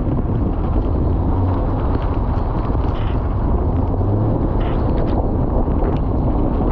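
Strong storm wind blowing across the microphone near a tornado: a loud, steady low rumble.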